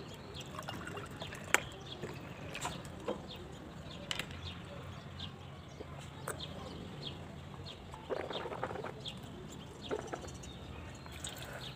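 Water poured from a plastic bottle into a terracotta cup, then sipped and swallowed, with scattered small clicks from handling the cup and bottle. Faint bird calls in the background.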